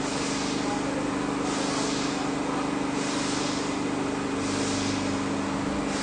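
Steady machine hum with a hiss that swells and fades about every second and a half.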